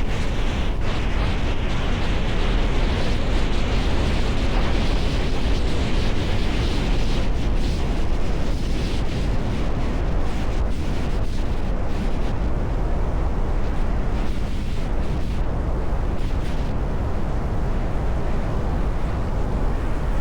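Strong wind buffeting the microphone: a loud, steady rush of noise, heaviest in the low end, with small irregular gusts.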